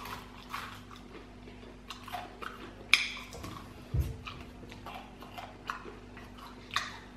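Close mouth sounds of someone gnawing and sucking on a fried chicken bone: scattered wet smacks and clicks, with a dull thump about four seconds in.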